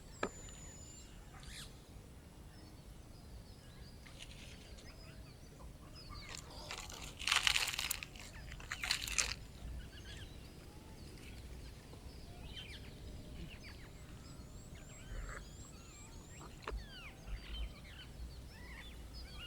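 Small birds chirping and trilling throughout, with a louder harsh, rasping call or noise about seven to nine seconds in.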